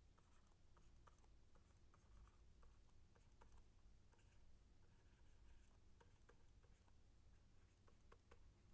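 Near silence with faint, irregular taps and scratches of a stylus writing on a pen tablet.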